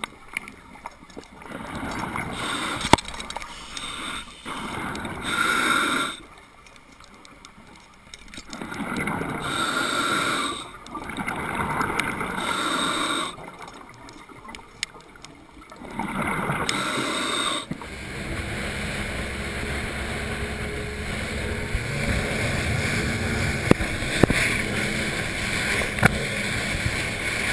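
Underwater, a diver's breathing comes in cycles every few seconds, a burst of hissing and bubbling followed by a quieter gap. About two-thirds of the way in it gives way to a boat running at speed on Evinrude outboard motors: a steady engine and rushing-water noise with occasional splashes against the camera.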